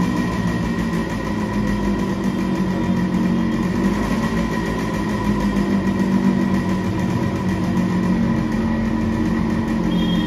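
Yamaha RX100's two-stroke single-cylinder engine idling steadily through a silencer freshly sealed with a makeshift fix for an exhaust leak; the owner finds that the silencer's mesh isn't giving the proper exhaust note.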